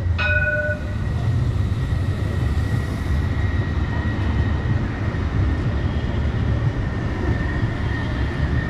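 Granada Metro light-rail tram (CAF Urbos 3) passing close by: a steady low rumble and a thin, high whine. A brief chime sounds at the very start.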